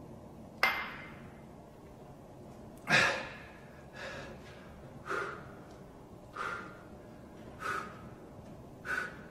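A man's hard exhalations, one with each rep of dumbbell side lateral raises: seven short breaths, roughly one every second and a quarter, the first two the loudest.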